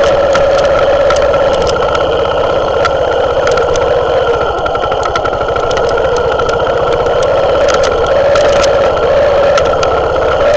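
Herald Classic motorcycle engine running steadily at low revs, its pitch dipping slightly and rising again. Frequent sharp clicks and knocks come from the bike running over loose stones.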